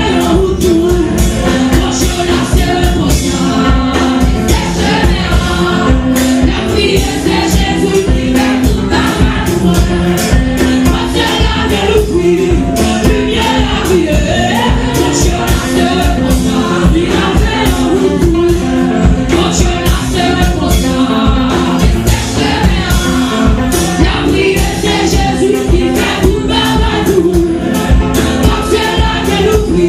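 Women singing a gospel worship song into microphones over loud amplified backing music with a steady beat.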